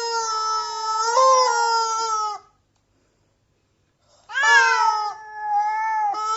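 A cat yowling in long, drawn-out meows. One held call ends about two and a half seconds in. After a pause of nearly two seconds, a second long call starts and is still going at the end.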